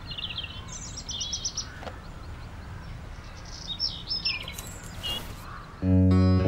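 Birds chirping, with a quick run of repeated trilled notes about a second in and more calls around the fourth second, over a low steady background noise. Acoustic guitar music starts abruptly near the end.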